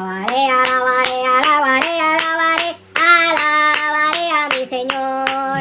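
A high-pitched voice singing a short tune in held notes that step up and down, with a brief break about three seconds in.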